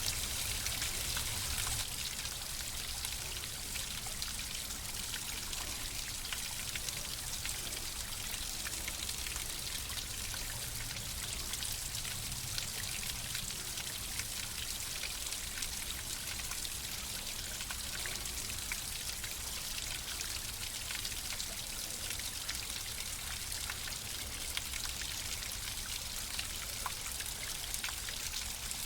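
Flowing water running steadily: an even rushing hiss scattered with many small drip-like splashes.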